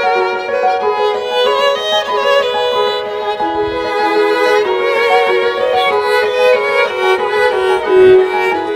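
Background music: a bowed violin playing a melody with vibrato over accompaniment.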